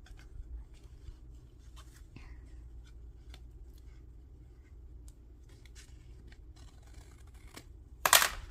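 Paper being handled on a work table: scattered light taps and rustles, then one short, much louder scratchy rustle near the end.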